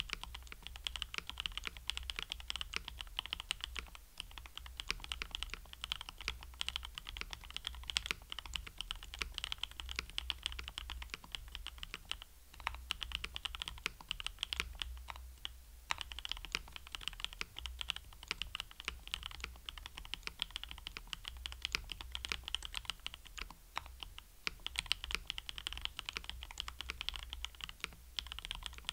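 Steady typing on a KBD67 Lite R2 65% mechanical keyboard fitted with lubed and filmed C3 Equalz Tangerine V2 linear switches, Durock V2 stabilisers, DCS Sleeper keycaps, case foam and a silicone gasket, giving a dense run of keystrokes. The typing thins out briefly about twelve and sixteen seconds in.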